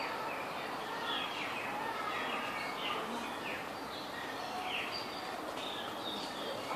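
Several birds chirping, with many quick downward-sliding calls that overlap throughout, over a steady background hiss.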